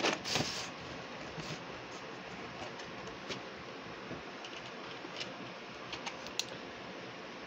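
Faint handling of a VHS tape and its case: a short rustle at the start, then a few light clicks and taps over a steady hiss.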